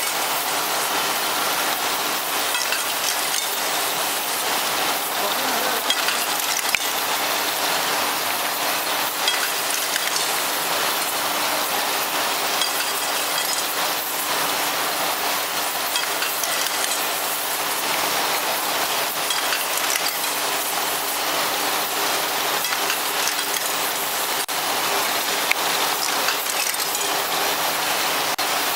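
Glass vial forming machine running: a steady hiss from its burner flames heating the glass tubes, with scattered light clicks from the rotating mechanism and a faint steady hum under it.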